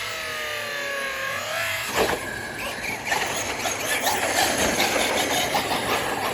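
Brushless-powered 1/7-scale RC car: its motor's whine falls away as it slows, then a sharp knock about two seconds in. After that the motor runs on with a steady whine over a rattle of tyre and gravel noise.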